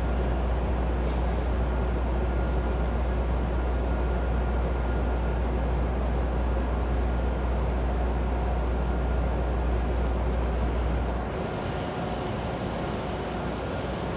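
Steady railway-station background noise with a strong low hum that drops away suddenly about eleven seconds in, and a few faint steady tones above it.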